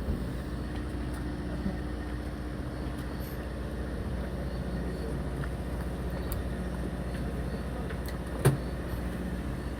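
Steady low hum of a fishing boat's engine running, with a single short knock about eight and a half seconds in.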